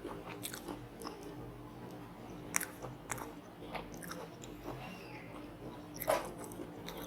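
Close-miked chewing and crunching of batter-fried squid, with scattered crisp clicks; two louder crunches come about two and a half seconds in and near the end.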